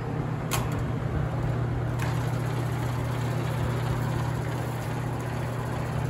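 Box fan running on high, lying on top of an AC condenser unit and blowing down into it to turn the condenser's stalled fan blades: a steady motor hum with a rush of air. Two light knocks come in the first two seconds as the fan is set in place.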